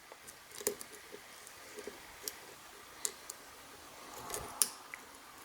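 Faint, scattered metallic clicks and ticks of a hook pick probing the pin stack inside a Brinks stainless steel padlock's keyway, a little denser near the end.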